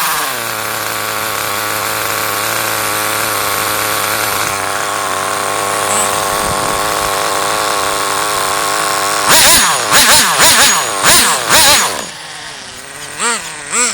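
Small two-stroke nitro engine of an HPI RS4 3 Evo+ RC car running at a steady speed, its pitch settling in the first half second. About nine seconds in it gives a quick series of sharp revving bursts for a couple of seconds, then drops lower with two short throttle blips near the end.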